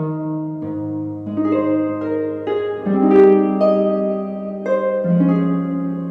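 Soft instrumental background music of plucked, harp-like notes laid over chords, with new notes and chords entering every second or so.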